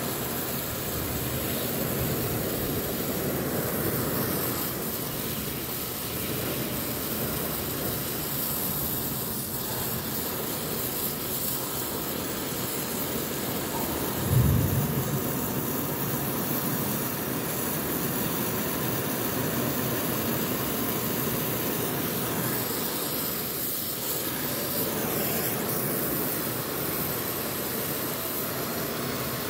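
Oxy-fuel brazing torch flame roaring steadily as it heats a copper pipe joint, with a brief low thump about halfway through.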